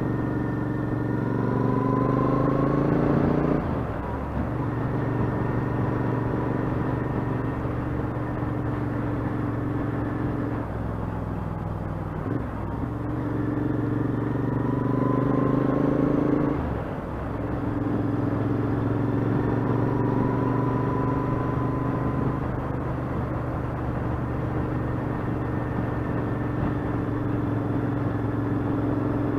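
Royal Enfield Interceptor 650's parallel-twin engine running while riding. Twice, about a second in and again about 14 seconds in, the revs climb for a couple of seconds and then drop off sharply, before the engine settles back to a steady cruising note.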